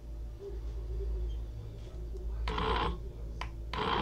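Soup maker blending on its pulse setting: the motor runs with a low, steady hum, and the blade churns the soup ingredients in two louder bursts, about a second apart, in the second half.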